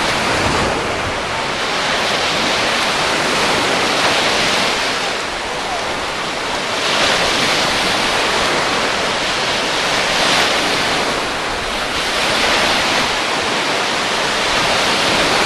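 Small lake waves breaking and washing up a sandy shore, a steady rush of surf that swells every few seconds.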